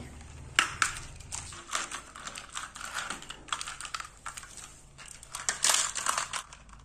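Hard plastic toy train cars clicking and clattering as they are handled, joined together and set onto plastic track, with a denser run of clicks about two thirds of the way through.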